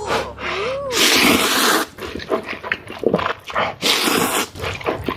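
A person coughing in fits from spicy food: a short voiced groan, then a long loud cough about a second in, a string of short coughs, and another loud cough near the end.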